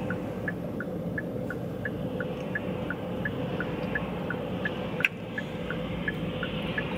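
A car's turn-signal indicator ticking evenly, about three clicks a second, over a steady low hum inside the car's cabin. There is one sharper click about five seconds in.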